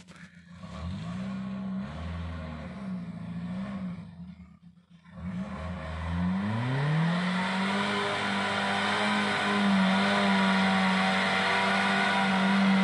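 Off-road 4x4's engine revving as it climbs a muddy trail: the revs rise and waver over the first few seconds, drop briefly about five seconds in, then climb again and hold high and steady, getting louder toward the end.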